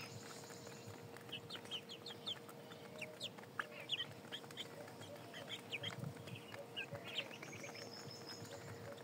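A small flock of chickens feeding off a concrete floor: quick, scattered beak taps as they peck, mixed with soft clucks, all faint, over a faint steady hum.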